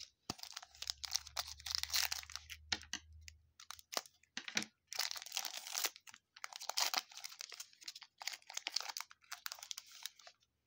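A foil trading-card pack wrapper crinkling and tearing in several bursts as it is opened and the cards are slid out.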